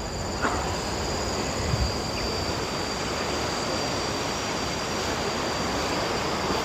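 Wind rushing over the microphone as a steady, even noise, with a thin unbroken high insect drone, crickets or cicadas, above it.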